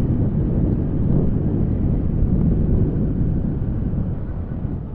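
Wind buffeting a helmet-mounted external microphone on a moving motorcycle: a steady, heavy low rumble with road and engine noise mixed in, easing slightly near the end. The rumble is unfiltered because the DJI camera's wind noise reduction does not work with an external mic attached.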